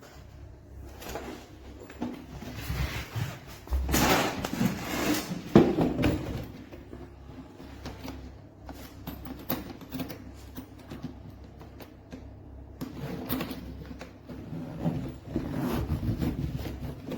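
Handling noise from a hardside suitcase: irregular scrapes, clacks and sliding sounds, loudest from about four to six seconds in.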